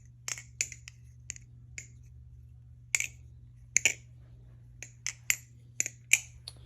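Aluminum barebones balisong clone being flipped by hand: its handles click and clack sharply in irregular runs, some clicks coming in quick pairs.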